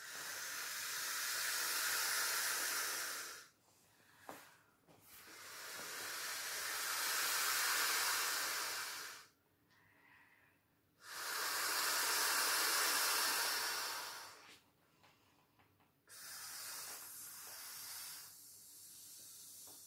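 A person blowing air by mouth through the valve of an inflatable vinyl paddling pool, with four long breathy exhalations and short pauses for breath between them; the last blow is weaker.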